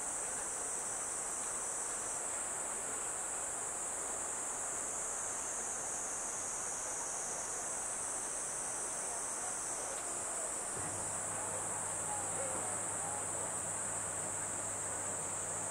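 Insect chorus: a steady, high-pitched shrill that runs throughout. A low, steady hum comes in about two-thirds of the way through.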